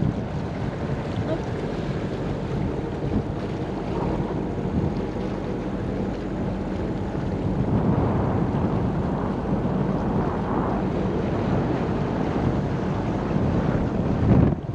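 Wind buffeting the microphone over the steady low drone of a sailboat's inboard engine, motoring after the wind has died.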